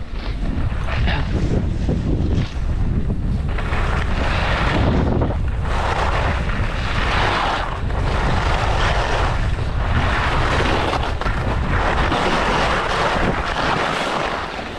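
Wind buffeting the microphone of a skier's camera at speed, with skis carving across groomed snow, the scraping hiss swelling with each turn. It dies down near the end.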